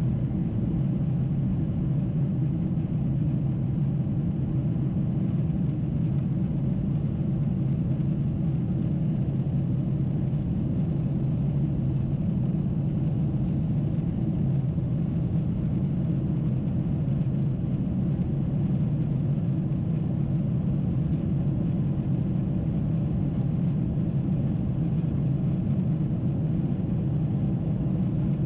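Steady low cabin rumble of a Boeing 747-8 climbing after takeoff, the sound of its four engines and the airflow heard from inside the passenger cabin.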